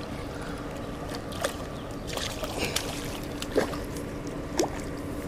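Water sloshing at the river's edge with several short splashes and knocks as a small northern pike, snagged in the fin, is drawn in to the bank; a steady low hum runs underneath.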